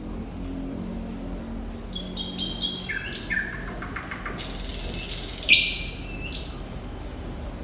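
Thrush nightingale singing: a phrase of short, stepped notes falling in pitch, a quick run of clicks, then a loud, harsh note about five seconds in.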